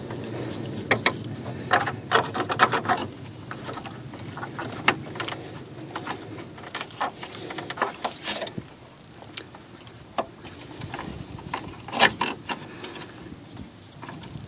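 Hand work refitting a shield over mounting studs: scattered clicks, knocks and light scraping, with clusters of taps early on and a few sharper knocks about twelve seconds in.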